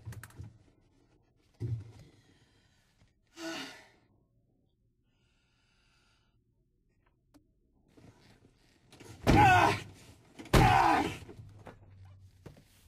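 A man crying out in anguish: a dull knock and a short sob early on, then two loud, drawn-out wordless screams about nine and ten and a half seconds in.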